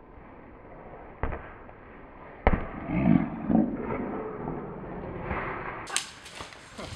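A football being kicked and juggled: sharp thuds of foot on ball, about a second in, at two and a half seconds (the loudest), and again near the end, with a louder muffled stretch of sound just after the loudest thud.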